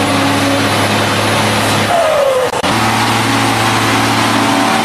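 LIAZ truck's diesel engine running hard and steadily under load as the truck churns through deep mud. About two seconds in the engine note briefly drops away with a falling whine, then picks up again.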